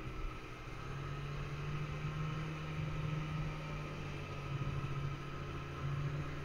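Snowmobile engine running at fairly steady revs while riding through deep powder snow, its pitch holding even with small rises and dips in level.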